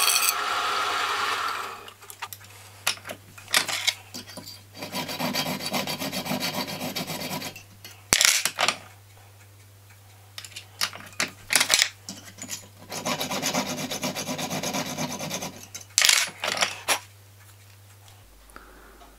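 A slitting saw on a milling machine cutting through an aluminium block for about two seconds, then stops. After that, two spells of rasping hand-sawing strokes, a junior hacksaw cutting serrations into the bore of the aluminium lap, with several sharp knocks of metal on metal between them.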